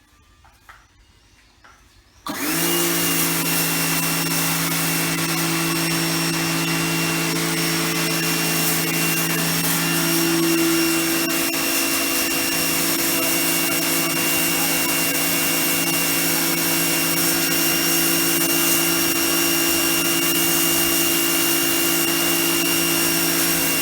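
Titan TTB66PRW electric pressure washer starting suddenly about two seconds in, then running steadily: a motor hum with a broad hiss over it.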